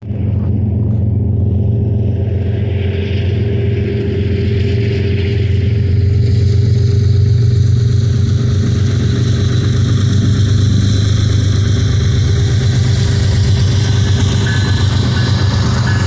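Approaching GE diesel-electric locomotives at the head of a loaded BNSF grain train, working under power: a steady low engine drone that grows a little louder as the lead ES44AC comes into view near the end.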